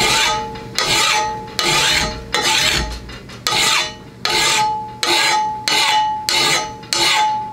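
A coarse double-cut (diamond-cut) hand file rasping along the edge of a steel lawnmower blade in about nine even push strokes, a little under a second apart. This is a first rough sharpening pass. The blade rings with a faint high tone on most strokes.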